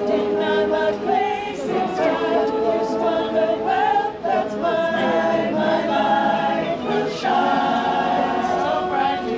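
A choir singing in harmony, several voices holding long notes that change pitch every second or so, without words clear enough to pick out.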